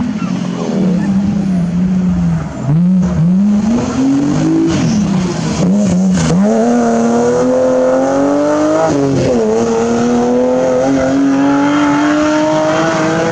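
BMW 3 Series (E36) rally car engine, revved hard. Its pitch drops and jumps several times as the car slows and shifts down, then it pulls through the gears with a long rising run and one upshift about two-thirds of the way through.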